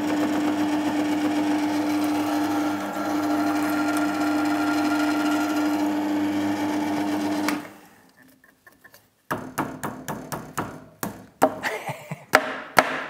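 Drill press running with a square hollow-chisel mortiser, the auger and chisel cutting into a wooden block. The motor runs steadily for about seven and a half seconds, then switches off and winds down. A quick series of sharp knocks and clicks follows.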